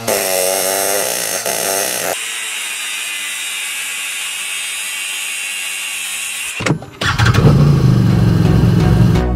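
A pneumatic air hammer chiselling at a steel bearing housing, cut at about two seconds to a cordless angle grinder cutting metal with a steady high hiss. At about seven seconds it cuts to a Can-Am side-by-side's engine running, loud and low.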